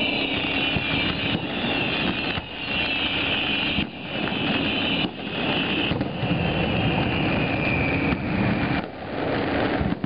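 Fireworks display: a continuous rumbling roar of launches and bursts, with a string of high whistles, each falling slightly in pitch, running through it.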